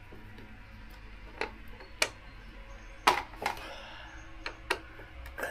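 Scattered sharp clicks and light knocks, about seven in all, the loudest about three seconds in, from a hand tool and plastic motorcycle fairing parts being handled while their fasteners are undone.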